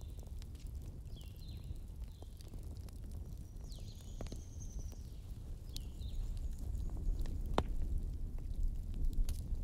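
Ambience recording of a daytime forest with a bonfire: birds chirping in short calls that drop in pitch, over a low steady rumble, with occasional sharp crackling pops from the fire.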